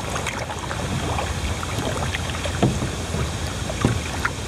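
Kayak paddle strokes: water splashing and dripping off a double-bladed paddle, with a few short, sharp splashes in the second half, over a steady low rush of wind and moving water.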